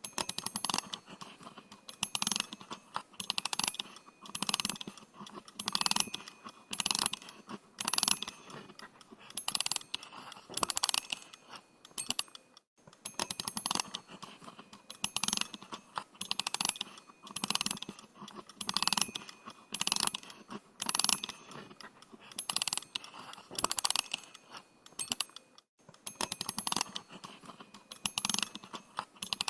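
A clockwork wind-up mechanism being wound, its ratchet giving short runs of rapid clicks about once a second, one run per twist of the key.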